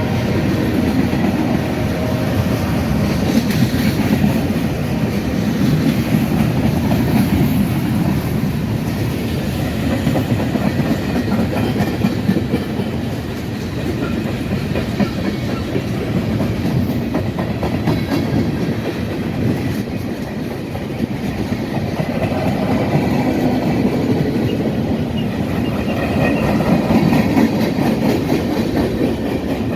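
A freight train rolling past, its wheels clicking steadily over the rail joints.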